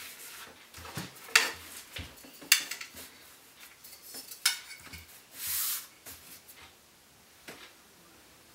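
A foam sheet and small tools being handled on a desktop cutting mat: a few sharp clicks and knocks as things are picked up and set down, then a brief scraping rustle about five and a half seconds in, quieter after that.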